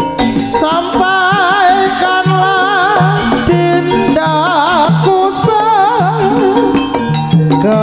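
Live Javanese jaranan accompaniment music. About a second in, a high melody with wide, wavering vibrato enters over a steady beat of struck percussion and repeating low notes.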